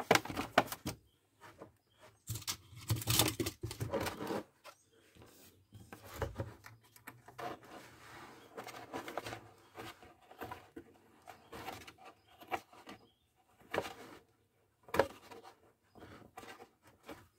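Handling noises from a plastic welding helmet being reassembled: irregular clicks, taps and scrapes of hard plastic as the filter cartridge and wires are fitted into the shell and a knob on the outside of the shell is fastened.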